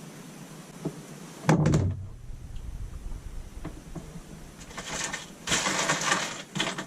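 Handling noise from 12 V wiring work: one sharp thump about a second and a half in, then a couple of seconds of scratchy rustling and scraping as insulation is stripped from a wire end.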